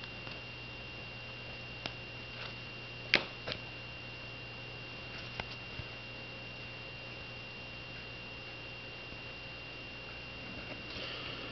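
Steady electrical hum with a faint high whine, broken by a handful of small sharp clicks and taps, the loudest about three seconds in, typical of cards and packaging being handled.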